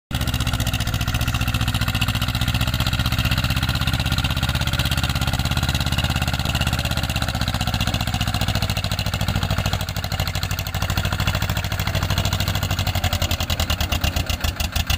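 Powertrac 425 N tractor's diesel engine running hard under heavy load, pulling a loaded trailer of soil through loose dirt. Near the end its firing beat slows and becomes more distinct as the engine lugs down.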